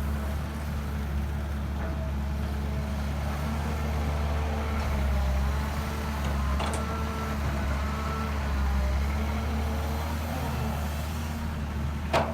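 Excavator's diesel engine running steadily under load, a deep continuous hum. One sharp knock comes near the end, with a fainter one about halfway.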